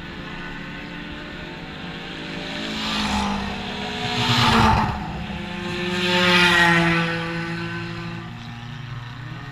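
Dirt-track stock cars racing past one after another, their engines swelling as each car nears and dropping in pitch as it goes by. Three passes, the loudest about halfway through and again about two seconds later.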